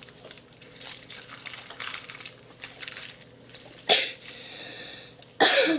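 Paper receipts rustling faintly as they are handled and pushed into a duct tape wallet, broken by two loud, sudden noises: a short one about four seconds in and a longer one near the end.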